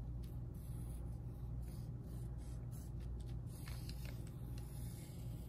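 Pencil scratching across printer paper in a run of short, uneven strokes as drawn lines are retraced to darken them, over a steady low hum.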